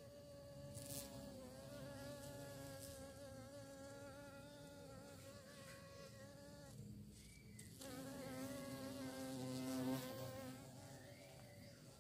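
A bee buzzing in flight, its hum wavering in pitch and swelling as it comes close. The buzz drops away for under a second about seven seconds in, then returns louder.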